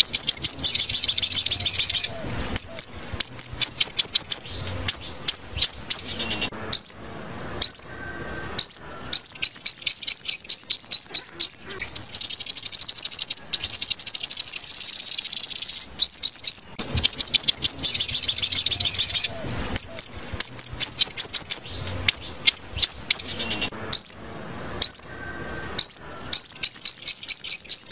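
Sunbird song: fast, loud trills of high, sharp down-slurred chips, broken by short pauses and a few single notes, the same run of phrases repeating about every sixteen seconds.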